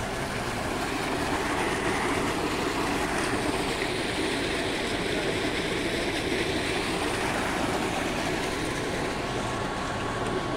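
Pumped irrigation water gushing out of a delivery pipe into a concrete cistern and rushing down a concrete channel: a steady rushing noise.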